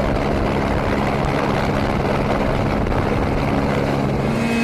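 Helicopter running steadily, with a constant engine and rotor drone and a haze of wind noise. Near the end it cuts to a different, steady engine note.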